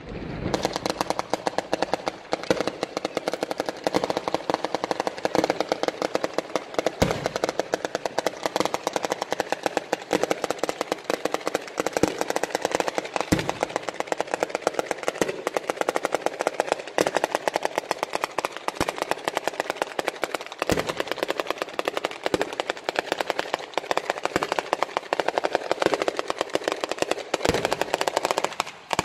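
Sanseverese-style firework batteria: a long chain of ground firecrackers going off in rapid, continuous succession, many sharp bangs a second, with a heavier bang every several seconds.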